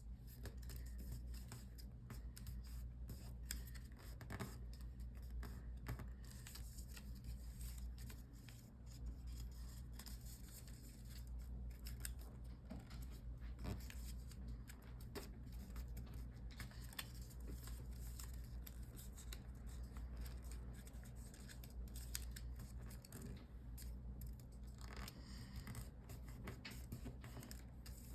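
Origami paper being folded and creased by hand: scattered short rustles, scrapes and crackles of paper, over a faint steady low hum.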